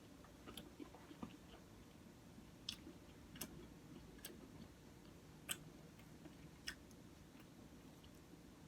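Faint close-miked chewing of a bacon, egg and cheese croissant sandwich, with about six sharp, wet mouth clicks spaced a second or so apart.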